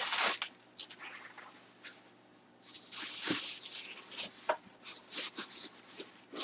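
Packaging around a full-size football helmet rustling and scraping as it is unwrapped by hand, in short bursts at first, then more steadily after a brief lull, with a couple of sharp knocks.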